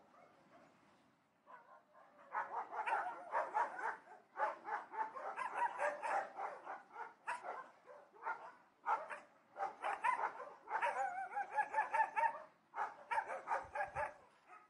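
Dogs barking in fast volleys of several barks a second, starting about a second and a half in, with brief pauses near the middle and near the end.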